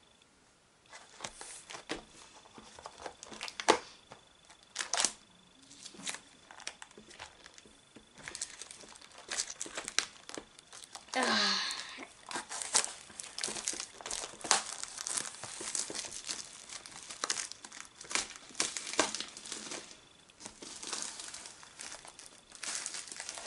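Clear plastic shrink wrap being torn and peeled off a booster box of trading cards, in irregular crinkling crackles, with one longer, louder rip about eleven seconds in.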